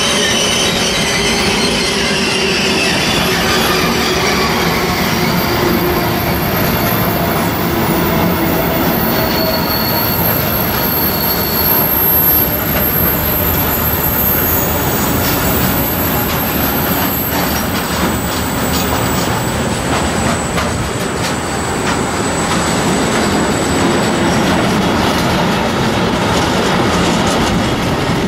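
Train rolling past on the rails, its wheels squealing and clattering over the track, steady throughout.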